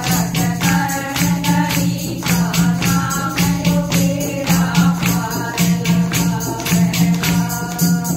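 A group of women singing a Haryanvi bhajan in chorus, with fast, even hand-clapping, about five claps a second, and the beat of a clay pot (ghara) drum. The song stops right at the end.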